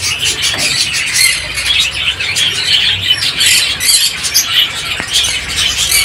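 Many small caged parrots chirping and chattering at once, a dense, continuous din of short high-pitched calls.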